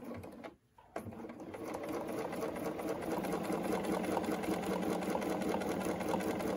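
Bernina B 770 Quilter's Edition sewing machine doing free-motion ruler-work quilting. Its needle-stroke chatter stops briefly just under a second in, then starts again and settles into steady stitching.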